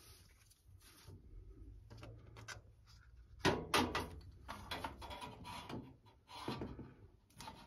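Handling knocks and rustling at a glass demijohn as the funnel is lifted off its neck and a rubber bung is pushed in, with the sharpest knock about three and a half seconds in.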